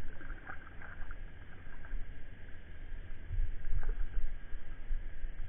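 Low rumble of wind on the microphone aboard a kayak, with a faint steady high tone and a few light knocks.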